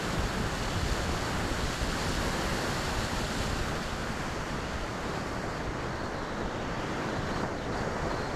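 Steady rush of wind over the microphone of the Skywalker FPV plane's onboard camera as it glides in low to land, with no motor tone heard.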